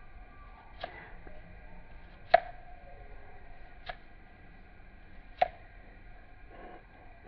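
Four sharp knocks, evenly about a second and a half apart, the second the loudest, over a faint steady background of thin high tones.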